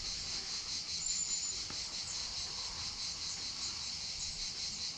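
Cicadas singing, a continuous high-pitched buzz that holds steady throughout.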